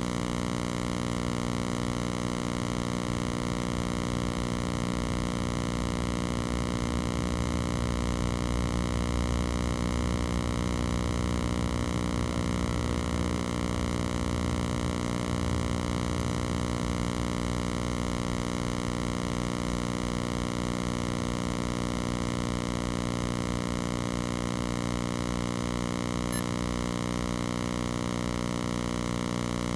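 Steady electronic buzzing tone with many overtones, unchanging in pitch and loudness throughout.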